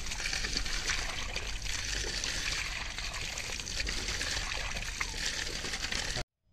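Water gushing steadily from an open wall-mounted pipe tap, splashing over cupped hands and onto the stone ground below. The sound cuts off suddenly near the end.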